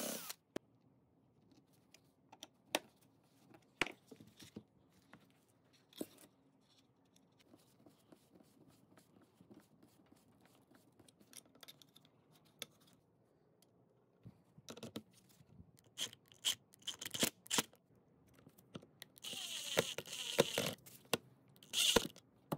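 Scattered clicks and light scrapes of a metal trigger guard being handled against a wooden rifle stock. Near the end a cordless drill runs briefly, driving a screw, with its pitch falling as it stops.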